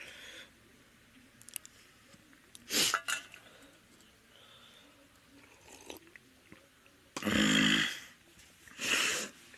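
A man coughing: three loud, explosive coughs, about three seconds in, then a longer one at about seven seconds and a shorter one a second later.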